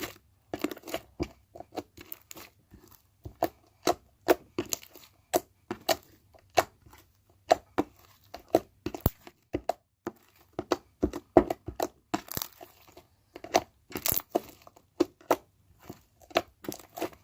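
Slime softened with water being squeezed and stretched by hand, making irregular sticky clicks and pops, a few a second.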